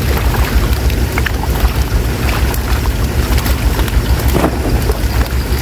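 Fish splashing and flapping in shallow water, with a strong splash about four and a half seconds in, over a steady low rumble.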